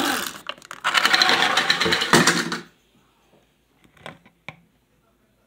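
Plastic chattering-teeth pirate skull toy clattering with a rapid mechanical rattle. The rattle stops abruptly about two and a half seconds in, followed by a couple of faint clicks.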